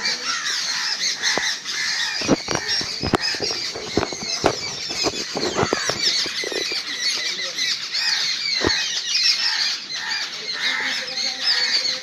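Crows cawing and squawking harshly while mobbing an owl, over constant high twittering. A quick run of sharp knocks comes in the first half, and one more follows near the three-quarter mark.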